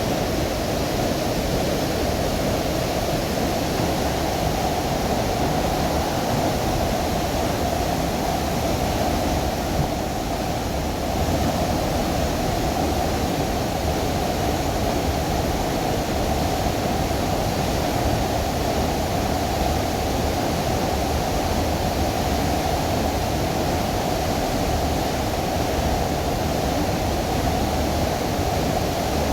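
Waterfall pouring: a loud, steady rush of falling water with no break.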